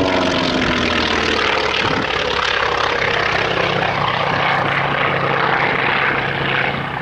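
Consolidated PBY-5A Catalina's twin piston radial engines and propellers droning as it flies past. The engine pitch drops over the first two seconds as it passes, then settles into a steady, noisy drone.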